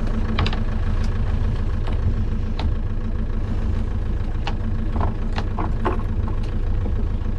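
Fishing boat's engine idling steadily, with a low hum, and scattered light clicks and taps on top.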